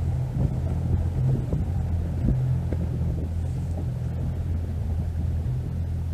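Boat motor running steadily, a low even hum, with light wind on the microphone.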